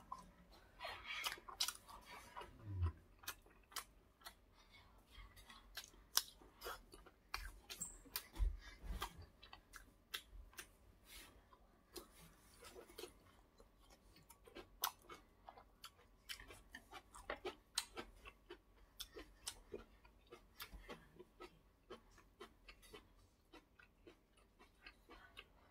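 Close-up chewing and mouth sounds of a person eating egg-topped fried rice and kimchi: a continuous run of many small clicks and smacks.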